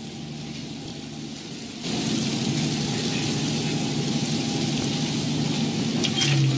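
Rustling of several people pushing through dense dry scrub: a steady hiss that gets louder about two seconds in, over a low steady hum.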